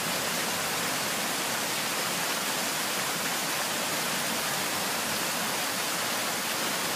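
Rushing floodwater: a swollen, overflowing river running fast, making a steady, even rush.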